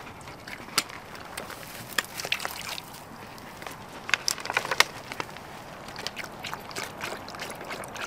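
A dog lapping water, a run of irregular wet clicks and sloshes.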